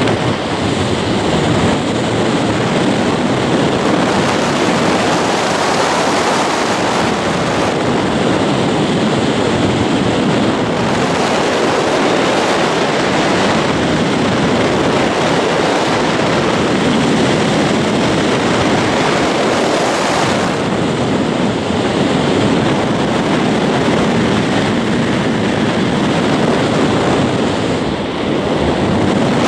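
Steady wind rushing over a camera microphone during flight under a ram-air parachute canopy.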